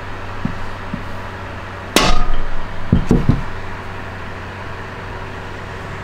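A hammer hits a seal installer once, seating a seal in an NSG370 manual transmission case, with a short metallic ring; about a second later come two or three softer knocks.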